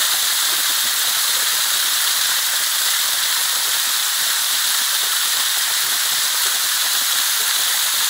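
Waterfall: water falling down a steep, stepped rock face close by, a steady, even hissing rush with most of its energy in the high range.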